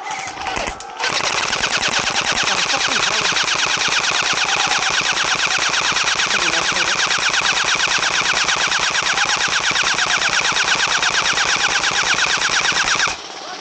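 Airsoft rifle firing one long, unbroken full-auto burst of rapid, even shots, most likely an HPA-powered Wolverine MTW. The burst starts about a second in and cuts off suddenly near the end.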